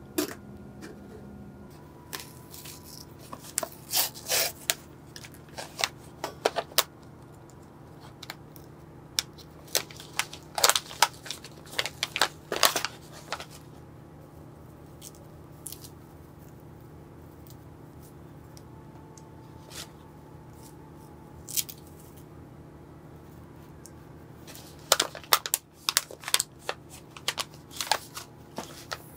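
Kraft paper tea pouch crinkling and rustling in three bursts of crisp crackles with pauses between, as it is opened and tea bags are taken out.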